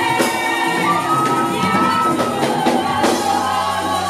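Live gospel worship music: a woman sings lead into a handheld microphone over a band with drums. A steady low bass note comes in about three seconds in.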